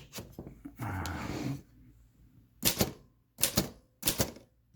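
Royal P portable typewriter being typed on: a short mechanical rush about a second in, then sharp typebar clacks against the platen in three quick pairs.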